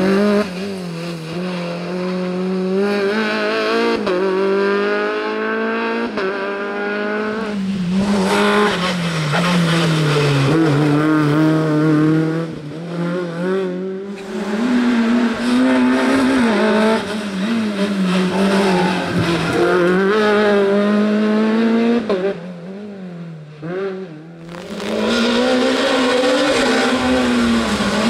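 Rally car engines at full throttle on a stage, a Renault Clio rally car and later a Peugeot 207 S2000: each revs up hard through the gears with sharp breaks at every shift as the cars pass one after another. The sound drops away twice between passes, once about halfway through and again a few seconds before the end.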